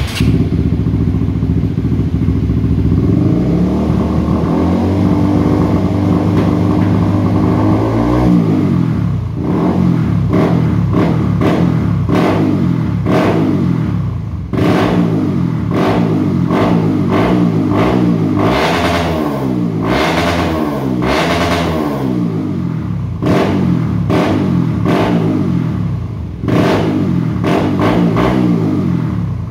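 Honda CBR150R's single-cylinder engine running through a Leovince Carbon Evo exhaust with the dB killer removed. It idles steadily for about eight seconds, then is revved again and again in quick throttle blips, the pitch rising and dropping with each.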